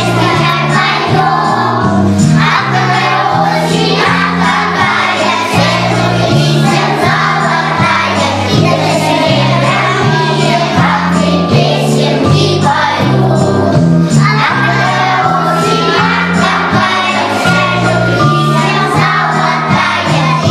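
A group of young children singing a song together over a recorded backing track with a steady bass line.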